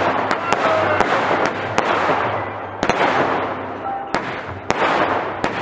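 Fireworks going off: a string of sharp bangs, several in quick succession and then about one a second, with a continuous noisy rush between them.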